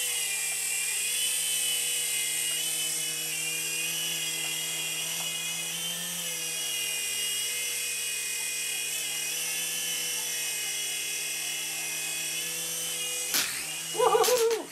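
Motor and rotors of a 9808 mini RC helicopter, a steady whine whose pitch wavers slightly as it hovers and manoeuvres. Near the end a sharp knock and a brief clatter as the helicopter clips a CD rack, and the whine stops.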